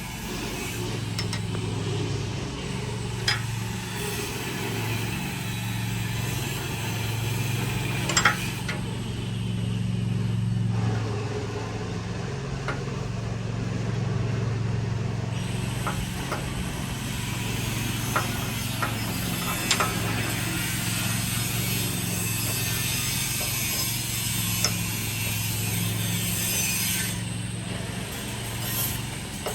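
An engine idling steadily, with a dozen or so sharp clicks and knocks scattered through it, the strongest about eight seconds in.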